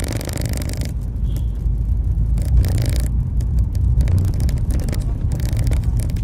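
Engine and road rumble of a moving vehicle heard from inside its cabin while driving: a steady low rumble, with short patches of hiss now and then.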